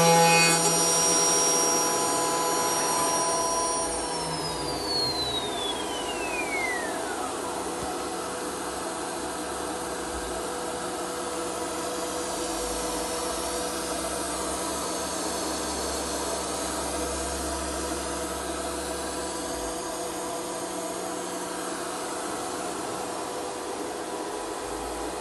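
CNC machining centre's spindle whining steadily at high speed, then about four seconds in its pitch falls smoothly over some three seconds as it spins down after milling the aluminium profile. A steady whirring hiss with a faint hum carries on afterwards.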